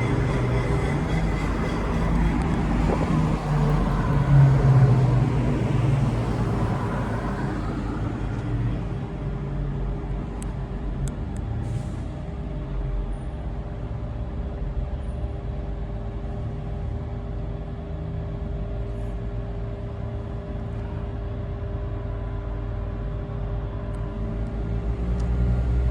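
A motor vehicle running steadily with a hum made of several held tones. It is louder for the first several seconds, settles, then grows louder again near the end.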